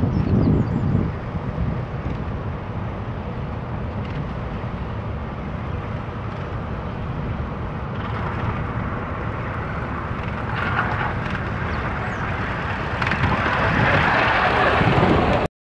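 A 3.5-inch-gauge Rob Roy live-steam tank locomotive approaching and running past. A hiss of steam and running noise builds over a steady low rumble and is loudest as it passes close by, then cuts off suddenly near the end.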